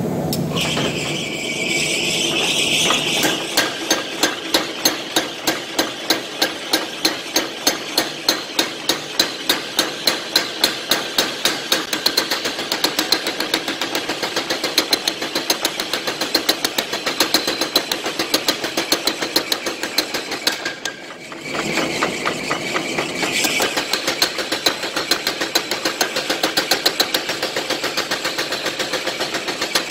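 Power hammer striking red-hot steel in rapid, even blows, a few a second, drawing out the blade of a Korean nadae machete. The blows stop briefly about two-thirds of the way through, then start again.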